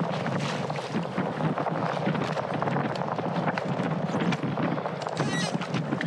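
Wind buffeting the microphone on an open boat, a steady rushing noise.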